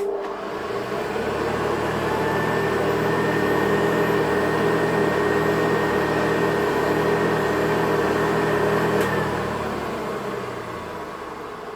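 Vintage Hoover Ranger vacuum cleaner switched on: the motor starts suddenly, spins up over a few seconds and runs steadily with a whine, then is switched off about nine seconds in and winds down.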